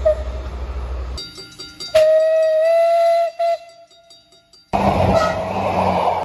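Train horn (makrofoon) sounding one steady blast of about a second and a half, then a short toot. Train rumble comes before it, and loud rushing train noise follows after a cut.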